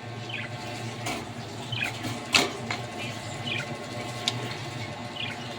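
Budgerigars giving short, falling chirps every second or two, with a few sharp clicks, the loudest about halfway through, over a steady low hum.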